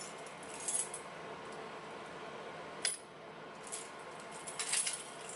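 Keys on a key ring clinking faintly against each other as they are sorted through, a few light jingles with one sharper click about three seconds in.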